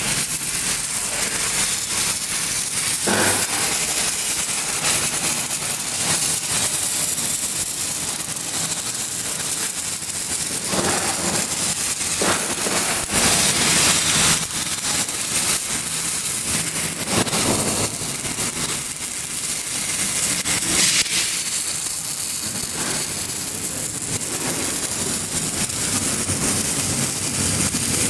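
Electric arc welding: the arc giving a steady crackling sizzle, with small swells in loudness.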